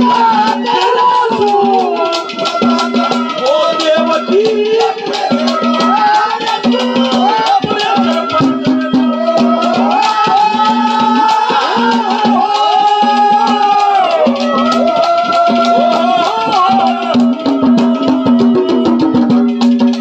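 Instrumental interlude of live Haryanvi ragni stage music: a lead melody instrument bending and gliding between notes over drums and jingling percussion, with a low note pulsing in a steady rhythm.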